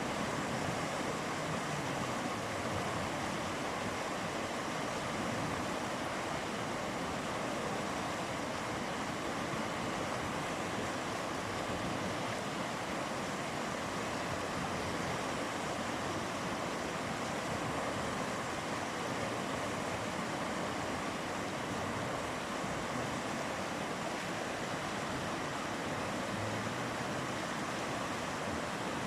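River flowing, a steady rushing of water.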